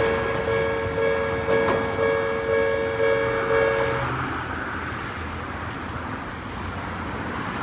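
Electronic level-crossing warning bell of the old Odakyu type, a repeating two-tone ring about twice a second, cutting off about four seconds in as the crossing clears after the train.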